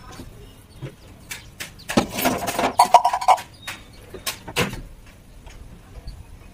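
Laundry being loaded into an automatic washing machine: clothes rustling and knocking as they go in, loudest about two to three seconds in with a short squeak near the end of that stretch. A plastic liquid-detergent bottle and its cap are then handled, with a knock shortly before the pour.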